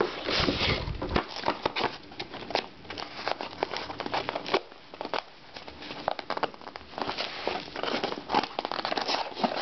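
Cardboard box and packaging being handled by hand: rustling, scraping and many small clicks and crackles as flaps are pushed aside and the contents are rummaged through, with a dull bump in the first second.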